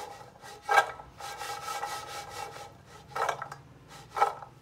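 Skillet of fried honey cookies being shaken and tossed, the cookies sliding and rubbing against the pan in the sticky honey glaze, with three louder scraping strokes, about a second in, past three seconds and past four seconds.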